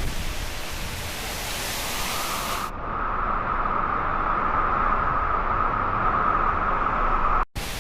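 Steady roar of a tall waterfall's water crashing into its plunge pool. About a third of the way in the sound suddenly turns duller as the high end drops away, and it cuts out for a moment near the end.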